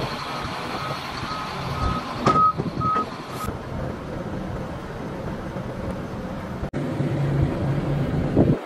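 Backup alarm beeping about twice a second over the running of heavy diesel equipment, with a sharp metal clank a little over two seconds in. The beeping stops partway through and the engine noise carries on.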